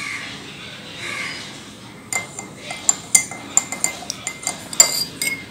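A spoon clinking quickly and irregularly against the side of a cup, stirring half a teaspoon of honey into warm lemon water; the clinks start about two seconds in.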